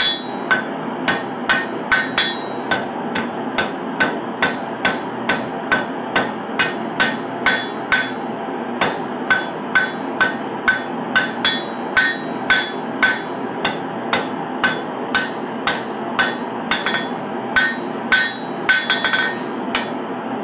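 Hand hammer striking a red-hot folded-steel katana blade on an anvil in a steady rhythm of about two blows a second, each blow with a short metallic ring, as the blade's bevels are forged. A steady machinery noise runs underneath.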